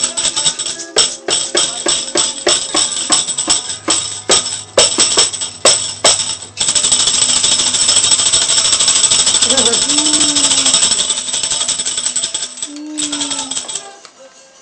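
Children's toy tambourine from a Band-in-a-Box set, tapped about three times a second with its jingles ringing, then shaken continuously for about six seconds before fading out near the end.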